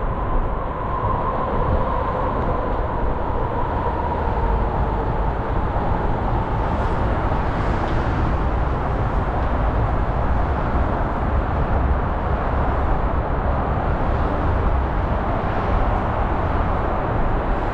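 Steady city rumble, heaviest in the low end. Over it a whine slides slowly down in pitch through the first half and fades.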